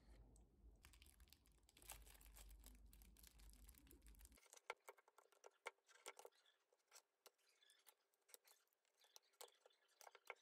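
Quiet handling sounds. First a dense run of small clicks over a low hum. Then, after a sudden change, sparse light taps and paper rustles as a kraft-paper notebook is handled on a wooden desk.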